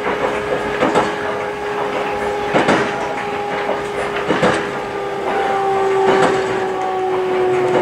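Ride noise inside an electric train on Aoimori Railway, with the wheels clacking over rail joints in pairs every couple of seconds. A steady whine runs under it and slides a little lower in pitch from about halfway through, as the train slows.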